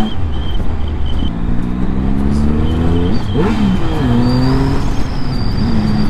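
Triumph Speed Triple's three-cylinder engine pulling up through the gears. The pitch climbs, drops at a gear change a little after three seconds in, then runs steadier as the bike cruises.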